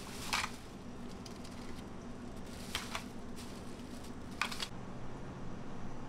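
Clear plastic bag crinkling in three short bursts as it is handled over broken dalgona candy shards, over a steady low hum.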